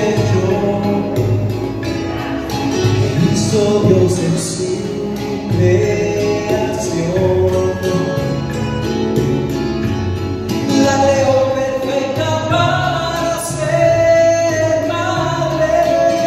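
A man singing a Spanish-language song into a handheld microphone over backing music, amplified through a sound system.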